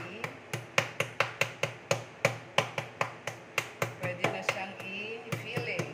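A fork pounding a butterflied chicken breast through cling wrap on a wooden cutting board, flattening it. The strikes are sharp and evenly paced, about three a second.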